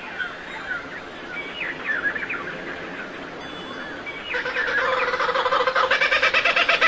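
Small birds chirping with many short, quick calls. About four seconds in, a louder, rapid pulsing bird call with a steady pitch joins and grows louder.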